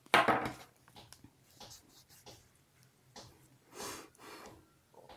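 A person breathing close to a phone's microphone: a sharp breath just as the sound starts, another about four seconds in, and fainter short breaths between.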